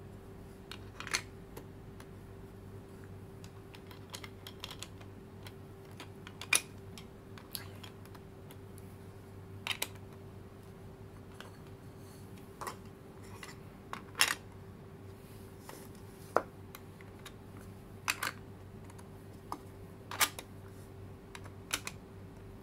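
Plastic Mondrian Blocks puzzle pieces being picked up and set down one by one into the plastic grid tray of the case: about fifteen sharp clicks and taps at irregular intervals, over a faint steady hum.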